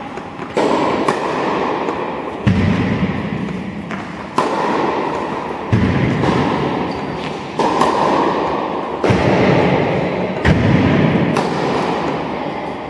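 Tennis ball struck by a racket again and again, sudden thuds every one to two seconds, each trailed by lingering noise.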